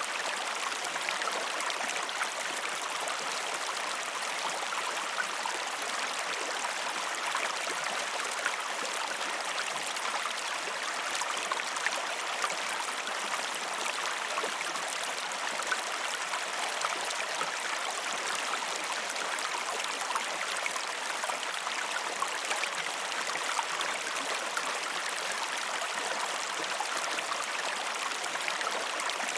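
A river running, a steady, unbroken rush of flowing water with small splashes throughout and little deep rumble.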